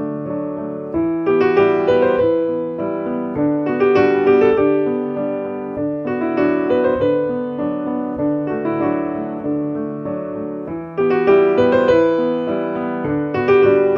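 Piano music: chords and a melody of struck notes that ring and fade, in phrases that swell about every two to three seconds.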